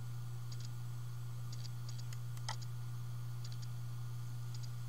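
Steady low electrical hum, with faint ticks in pairs about once a second and one sharper click about halfway through.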